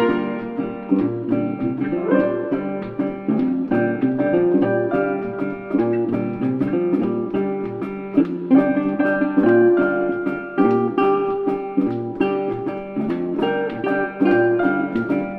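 Background guitar music with plucked notes.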